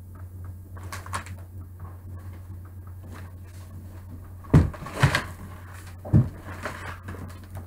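A cardboard box wrapped in crumpled brown paper being handled on a table: paper crinkling and rustling, with three knocks of the box a little past the middle, the first the loudest, over a steady low electrical hum.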